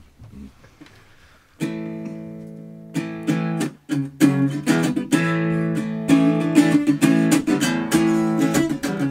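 Acoustic guitar: a strummed chord rings out about a second and a half in, then steady rhythmic strumming of chords.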